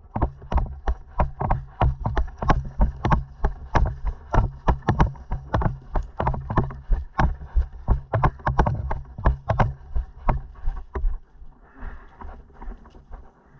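Quick footsteps on a path, about three steps a second, with the camera and gear jolting at each step. They stop about eleven seconds in.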